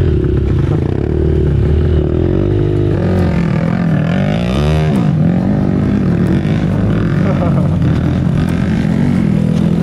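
Off-road dirt bike engines running and revving under load on a steep climb, with one quick rev up and back down about five seconds in.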